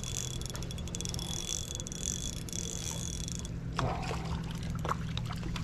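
Small ultralight spinning reel being cranked, a fast whirring with rapid even ticks, which stops about three and a half seconds in and is followed by a few soft handling knocks, over steadily flowing creek water.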